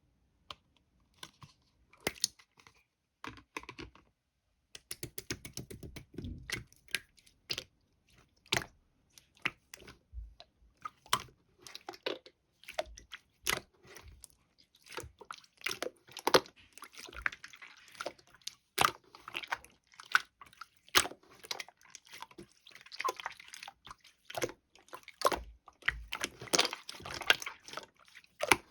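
A run of irregular close-up clicks, taps and crackles, sparse at first and growing denser and busier in the second half.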